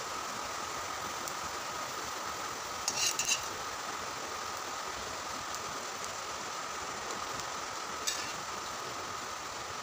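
Potato pieces frying in oil in a wok with a steady sizzle, while a slotted steel spoon scoops them out. The spoon clinks against the pan and a steel bowl in a quick cluster about three seconds in, and once more near eight seconds.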